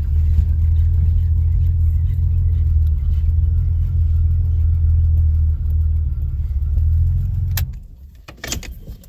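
1984 Chevy Citation X11's engine idling steadily, heard from inside the cabin, then switched off about seven and a half seconds in with a click. A jingle of the ignition keys follows near the end.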